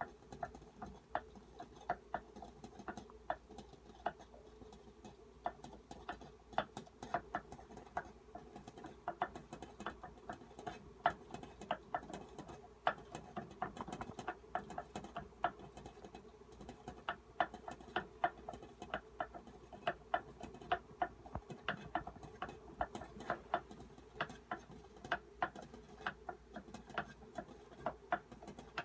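Mini Rex rabbit grooming itself, licking its forepaws and fur: a run of quick, irregular clicks and smacks, several a second.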